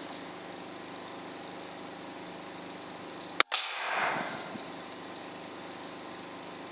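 A single air rifle shot, one sharp crack about three and a half seconds in, over a steady mechanical hum. A brief whoosh of noise falling in pitch follows the shot.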